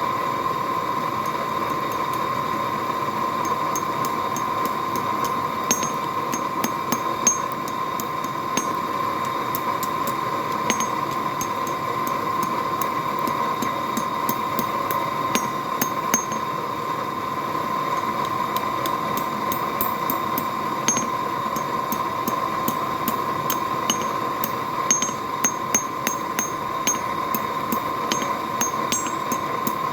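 Blacksmith's forge fire blowing steadily with a constant hum and hiss while steel heats in it. Light ticks and clinks are scattered through it, coming in small clusters.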